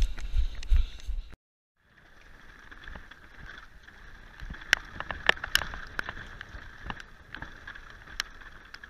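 Heavy thumping and rustling from someone running with a handheld camera, cut off suddenly about a second and a half in. Then a mountain bike rolls fast down a dirt trail, with a steady hiss of tyres and wind on the helmet camera and sharp rattling clicks from the bike over bumps.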